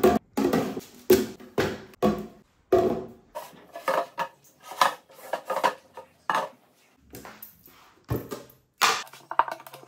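Clear plastic food-storage containers and their lids clattering and knocking on a stone countertop as they are set down, handled and wiped with a cloth: a run of short sharp knocks, thickest at the start, lighter handling noise in the middle, and two more knocks near the end.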